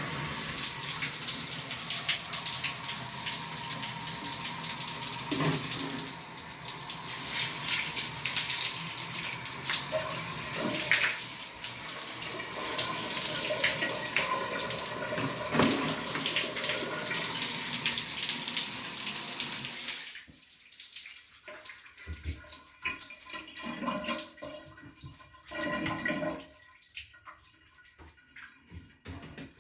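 Water running steadily from a handheld shower head into a bathtub. It is shut off about two-thirds of the way through, leaving only scattered small sounds.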